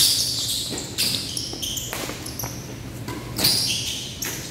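Badminton rally: rackets strike the shuttlecock sharply at the start, about a second in, and again about three and a half seconds in, echoing in a large sports hall. Short high squeaks of sneakers on the court floor come between the hits.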